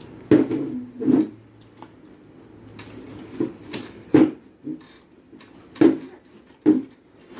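Eating by hand from a stainless steel plate: fingers scraping and gathering rice and food bits against the metal, mixed with close-up chewing. About eight short, sharp scrapes and clicks come at irregular intervals.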